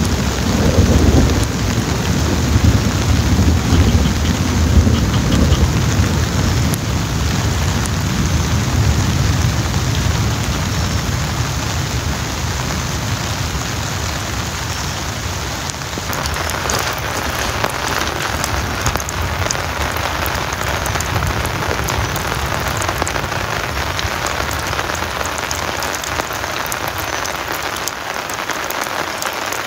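Heavy rain hissing down, with thunder rumbling low underneath for the first ten seconds or so. About halfway through the sound turns close and crisp: rain pattering on a tarp shelter.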